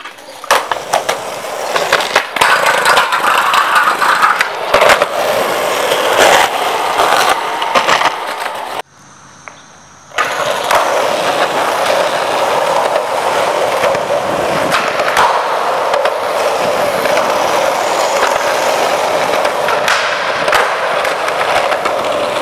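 Skateboard wheels rolling over rough concrete, with sharp clacks and slaps of the board in the first nine seconds. After a short drop about nine seconds in, the rolling runs on long and steady.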